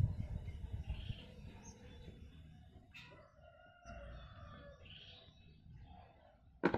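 A rooster crowing once, about three seconds in, with fainter bird chirps around it. A sharp knock near the end.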